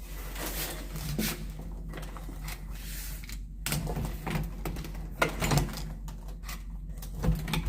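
Scattered clicks and knocks of a hotel room door being unlocked and opened, over a low steady hum.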